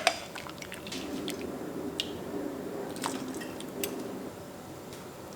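Anchovy broth being poured into a bowl of noodles: liquid splashing for a few seconds, with a few sharp clinks, and the pouring stops about four seconds in.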